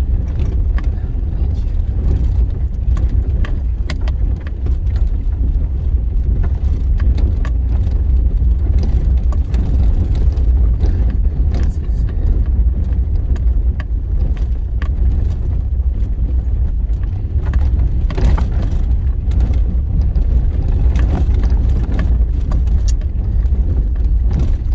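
Vehicle driving over a rough dirt road, heard from inside: a steady low rumble with frequent small rattles and knocks.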